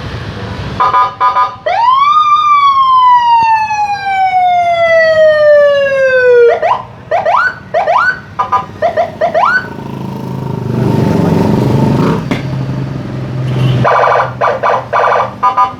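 Custom Senken-style electronic police siren fitted to a motor scooter, switched through its tones: a short pulsed beep, then a long wail that jumps up and slides slowly down, a run of quick rising whoops, a harsher buzzing tone, and fast repeating beeps near the end.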